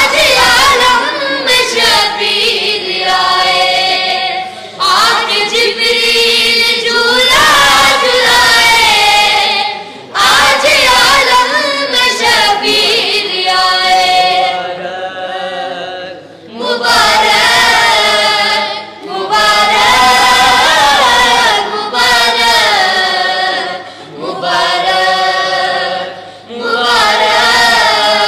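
A group of boys singing an Urdu manqabat (devotional praise poem) together with no instruments, in long sung phrases with brief breaks between them.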